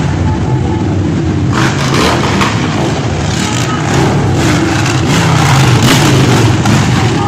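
Loud street traffic: a queue of cars with engines running, a steady rumble and hiss of road noise.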